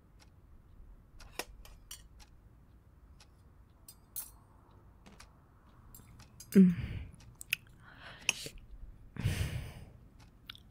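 A woman's breathing and voice: faint scattered clicks and taps, then a short voiced sound with a falling pitch about two-thirds in, and a long breathy sigh near the end.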